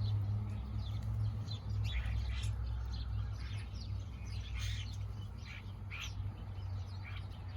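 Several blackbirds chirping, short quick calls overlapping one another, over a steady low hum.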